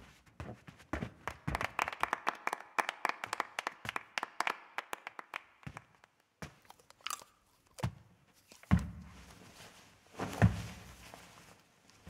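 Foley for a boxing scene: a quick run of small scuffs and taps like feet moving on a ring canvas, followed by a few separate heavier thuds in the second half.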